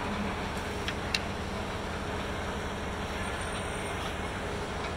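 Steady mechanical hum and rumble of a running escalator, with a couple of sharp clicks about a second in.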